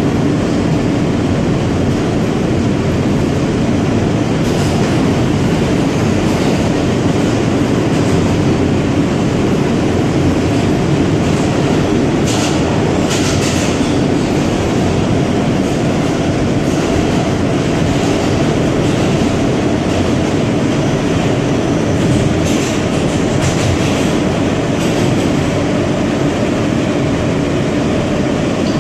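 Cabin noise of an R160 subway car running at speed: a steady loud rumble of steel wheels on rail, with short clusters of higher-pitched clatter a little before halfway through and again later.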